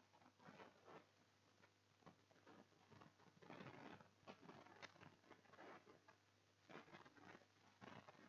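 Near silence: faint room noise with soft, irregular ticks and rustles.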